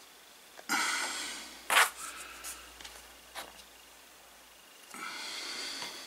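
Sniffing and breathing through the nose: a sharp sniff just under a second in and a longer one near the end. In between, a short loud thump a little under two seconds in and a few light clicks of plastic tool parts being handled.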